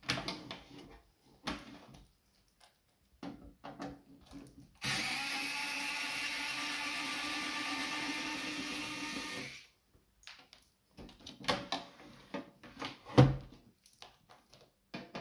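Handheld electric screwdriver running steadily for about five seconds, backing a screw out of a cassette deck's metal case. Clicks and knocks of handling come before and after, with a loud knock near the end.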